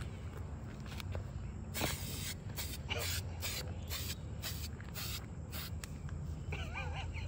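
Aerosol spray paint can sprayed in a quick series of short bursts, about eight hisses over some four seconds, the first one the longest.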